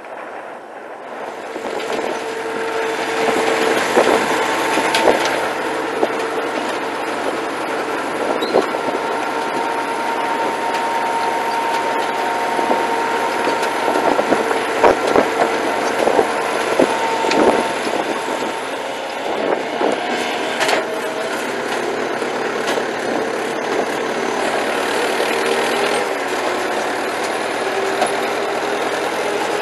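Fortschritt ZT tractor running in the field, with a steady whine over the engine and scattered clattering knocks; it grows louder over the first few seconds.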